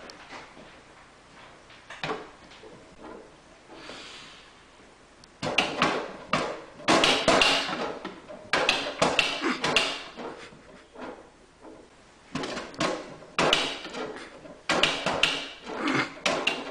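Cat door flap clattering in repeated runs of quick knocks as a kitten bats it with a paw, starting about a third of the way in.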